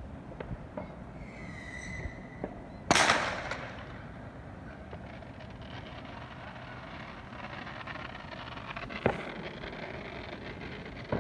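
Fireworks going off: a whistling firework sounds briefly about a second in, then a loud bang about three seconds in that rings on for a moment. Smaller pops are scattered through the rest, with another sharp bang near the end.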